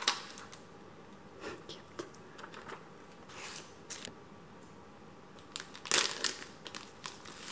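Plastic snack packaging crinkling and tearing as a boxed tart is unwrapped by hand, in scattered rustles and clicks with the loudest crackle about six seconds in.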